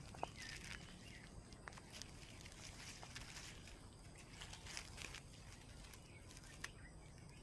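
Near silence: a faint, even outdoor background with a few soft, scattered ticks.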